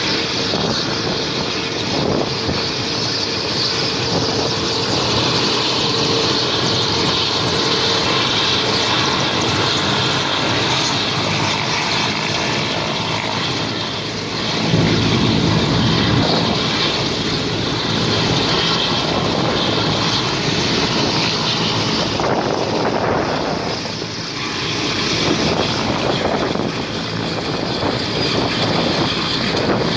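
Mil Mi-17 military helicopter running on the ground with its rotors turning: the steady, loud noise of its twin turboshaft engines and rotor before lift-off. About halfway through, the sound turns abruptly deeper and louder.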